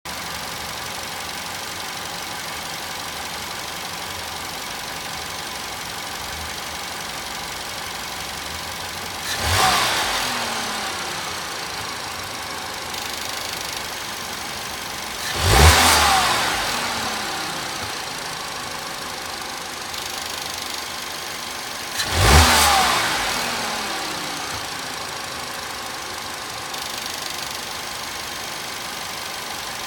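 Volkswagen MK7 Golf 1.8T turbocharged four-cylinder engine idling with a metallic ticking, revved sharply three times, each rev falling back to idle. The ticking goes away with the revs and comes back clearly once the engine settles to idle; the owner is unsure whether it is normal.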